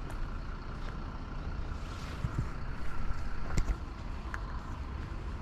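Steady low rumble of background vehicle traffic, with a few light clicks and one sharper click about three and a half seconds in.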